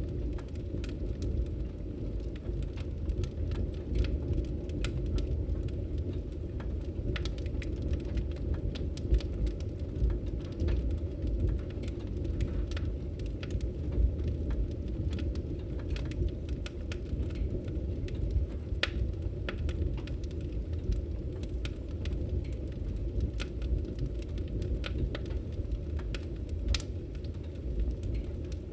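Wood fire burning in a fireplace: a steady low rumble with frequent irregular crackles and sharp pops of burning wood.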